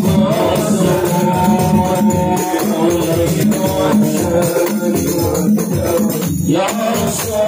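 Men's voices singing an Islamic sholawat together in long held notes over a steady, repeating percussion beat.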